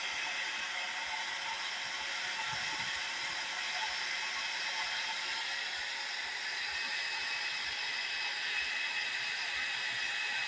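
Hair dryer running steadily, a continuous whir.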